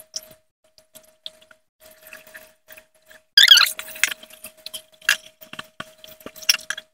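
Water splashing and pouring as drumstick (moringa) leaves are washed, with a loud gush of water about three and a half seconds in and small splashes and clicks around it.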